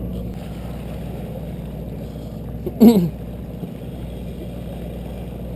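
Steady low drone of a fishing boat's engine, with one short, loud cry falling in pitch about three seconds in.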